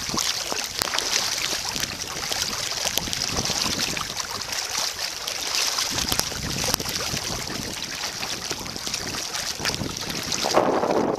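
Wind buffeting the microphone over water splashing and lapping around a kayak, with many small ticks, and a louder rush about ten seconds in.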